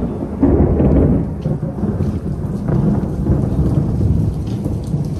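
Thunder rumbling over heavy rain pouring down, loudest about half a second in and rolling on through the rest.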